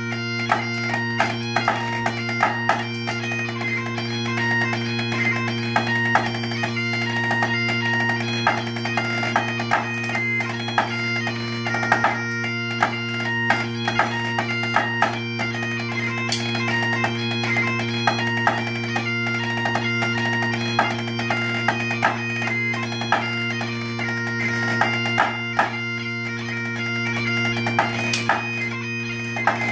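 Great Highland bagpipe playing a fast tune: steady drones under a busy chanter melody. Snare drumsticks tap a practice pad along with it, with sharp stick strikes throughout.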